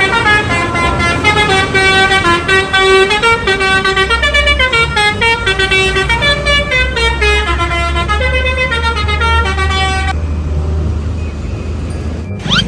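Bus telolet horn, a multi-tone musical horn, playing a stepping tune of many short notes, loud, over a low engine rumble. The horn stops about ten seconds in, leaving the engine and road noise.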